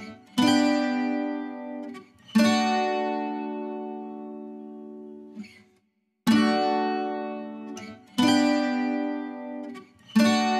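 Background music: guitar chords struck one at a time about every two seconds, each left to ring and fade.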